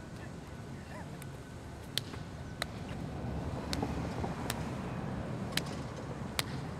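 Street traffic rumble that swells in the middle, with about half a dozen sharp clicks or taps scattered through it.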